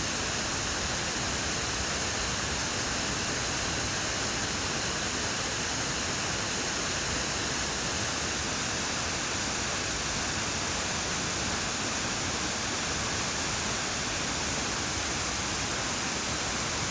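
Waterfall's heavy fall of water heard from the base of the falls: a steady, unbroken rush.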